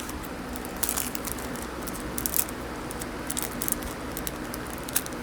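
Small plastic packaging being handled: scattered crisp clicks and rustles, in clusters about a second in, mid-way and near the end.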